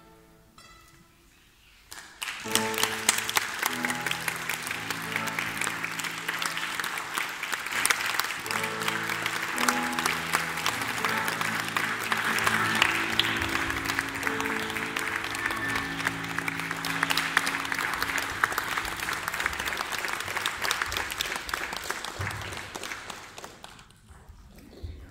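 Audience applause starts about two seconds in, after a short lull, and dies away near the end. Sustained musical notes sound beneath the clapping for most of its length.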